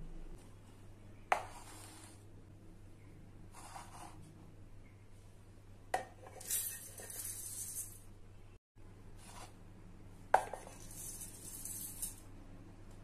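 Rolled oats poured from a bowl into a stainless steel grinder jar, twice. Each pour starts with a clink of the bowl against the metal and runs on as a rustling hiss of flakes sliding into the jar. There is another single clink about a second in.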